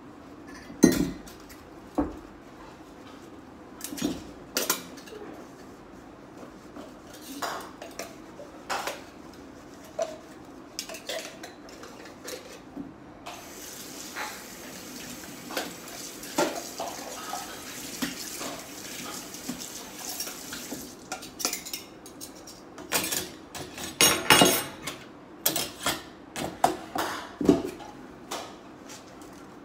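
Dishes, cups and cutlery clinking and clattering in a stainless-steel kitchen sink as they are washed by hand. The tap runs with a steady hiss for several seconds in the middle.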